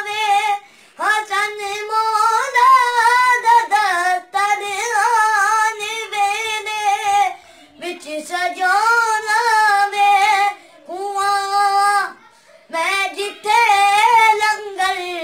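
A boy singing a Punjabi devotional song without accompaniment, in several long phrases of held, ornamented notes with brief breaths between them.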